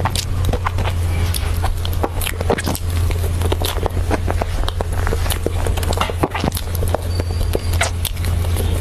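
Close-miked mouth sounds of eating whipped-cream sponge cake with mango: rapid wet lip smacks and soft chewing clicks, over a steady low hum.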